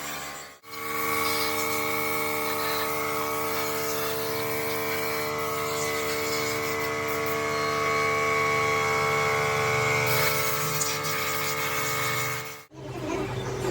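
A workshop machine running steadily with a constant multi-tone whine. It starts abruptly about half a second in and cuts off abruptly near the end, where a different, rougher mechanical sound follows.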